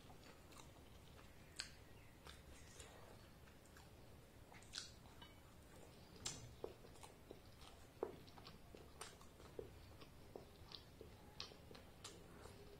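Close-miked, quiet chewing of soft fried luchi dipped in ghugni, with scattered small wet mouth clicks and lip smacks.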